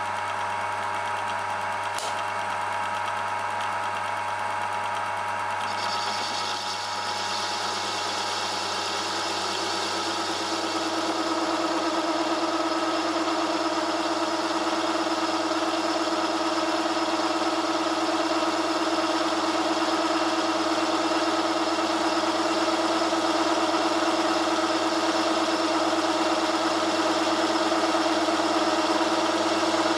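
Homemade metal lathe running while its turning tool cuts the spinning metal workpiece: a steady machine hum with cutting hiss. About ten seconds in a steady tone sets in and the sound grows a little louder.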